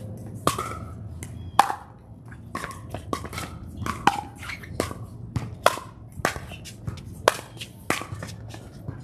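Pickleball rally: a string of sharp pops as solid paddles hit the hollow plastic ball, roughly one every half second to second, with the loudest hits about one and a half and five and a half seconds in.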